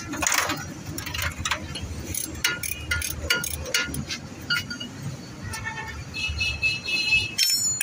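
Steel open-end spanner clicking and knocking on the bolts behind a car's front brake disc as the mechanic turns them. Ringing metal clinks come about six seconds in, with a sharper clink near the end.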